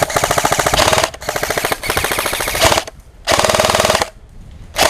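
Airsoft electric gun firing on full auto in several long bursts separated by short pauses. The rapid clacking of shots runs over the gearbox's whir.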